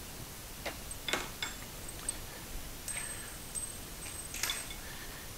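A few light metallic clinks and taps from loose steel hardware, the crane ram's mounting bolt and its parts, being handled. One strike leaves a thin high ring.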